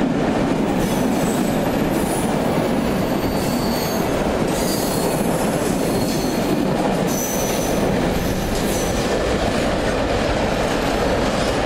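Covered hopper freight wagons rolling past at close range: a steady, loud rumble of wheels on rail, with several short high squeals from the wheels.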